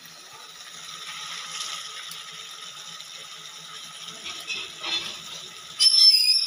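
Crab curry simmering in a metal kadai over a gas burner with a steady soft sizzle as masala-coated crab pieces are set into the gravy by hand. About six seconds in there is a brief, loud, high-pitched squeak.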